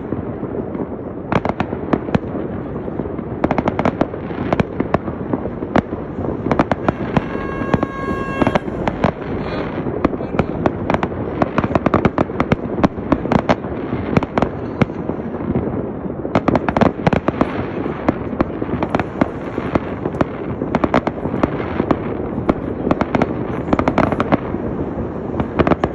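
Fireworks display: a dense, continuous run of bangs and crackling bursts, with no let-up. About seven seconds in, a steady pitched tone sounds for about a second and a half.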